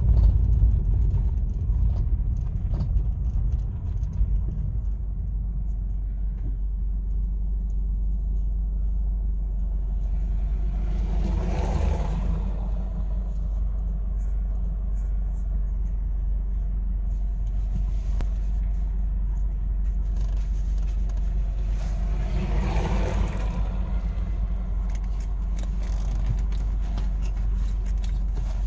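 A car driving, its engine and tyres making a steady low rumble, with two louder swells, one about twelve seconds in and another about twenty-three seconds in.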